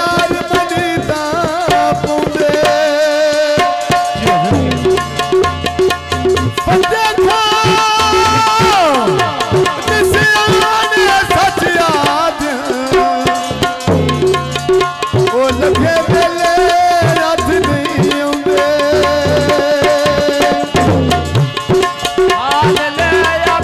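Punjabi goon mahiye folk music: a male singer's voice over a steady hand-drum rhythm and sustained melodic instrument tones.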